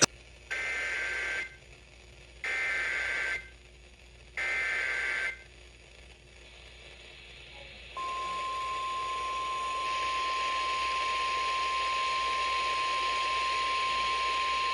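NOAA Weather Radio alert preamble: the Emergency Alert System SAME digital header sent three times as one-second warbling data bursts about a second apart, then, about halfway through, the steady 1050 Hz weather-radio warning alarm tone over radio hiss. It heralds a National Weather Service tornado warning.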